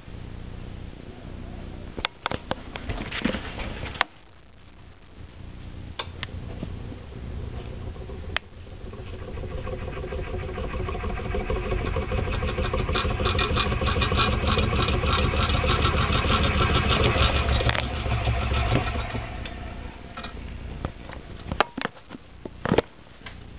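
Stainless steel pot of heating water rattling and buzzing rapidly against a glass-top electric stove. Scattered clicks and ticks come first. About nine seconds in a fast chatter starts, swells to a loud steady buzz, then fades, and a few sharp clicks follow near the end.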